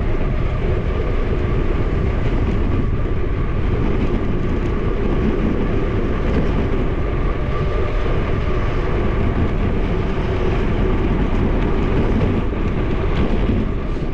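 Steady wind buffeting on an action camera's microphone as a bicycle rolls fast downhill on asphalt, a continuous low rumble with tyre noise.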